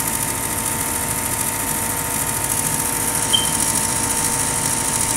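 Gas furnace draft inducer motor fan running steadily with a constant whine, after a failed ignition where the glow-plug ignitor came on but the main gas burners did not stay lit. A brief high chirp sounds about three seconds in.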